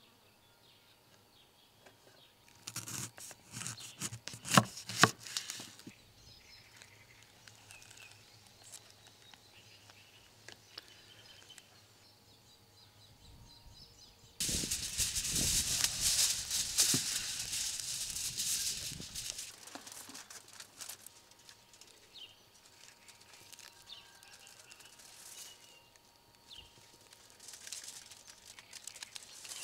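Aluminium foil crinkling and rustling as it is handled around beef rib bone tips, loud for several seconds in the middle. A few seconds of sharp clicks and knocks come earlier.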